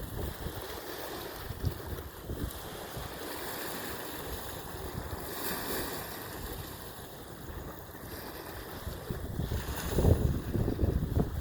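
Wind buffeting the microphone over a steady wash of water, with stronger gusts about ten seconds in.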